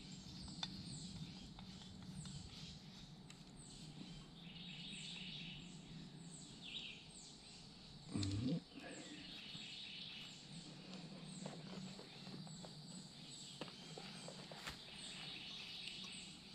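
Quiet woodland ambience: short high chirps, each falling in pitch, repeat about twice a second over a faint steady hiss. Faint clicks and ticks come from a backpacking stove being screwed onto its fuel canister, and a brief low thump sounds about eight seconds in.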